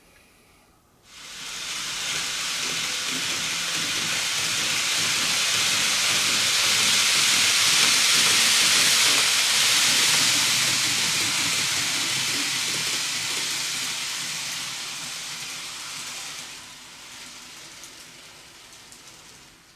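A train passing by: an even rushing hiss that swells up over several seconds, peaks midway, then slowly fades away.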